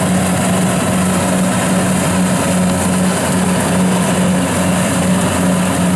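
Small rice combine harvester running steadily as it cuts and gathers flattened rice. A continuous engine hum sits under a dense mechanical noise from the machine.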